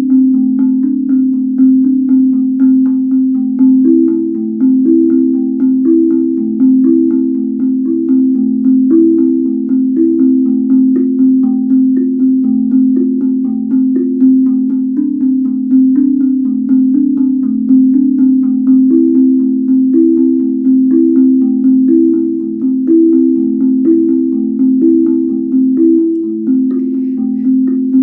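Guda steel tongue drum played by hand in a steady, repeating pattern of low ringing notes, struck about once or twice a second, each note ringing on into the next.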